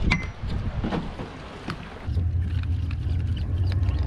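A few scattered clicks and knocks. Then, about two seconds in, a steady low rumble starts: the drone of a boat at sea.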